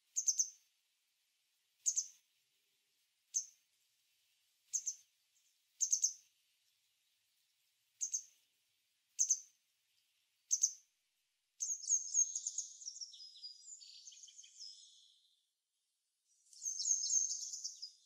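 Small songbirds calling in the cold: eight short, high chirps one to two seconds apart, then a longer twittering phrase about twelve seconds in and another shortly before the end.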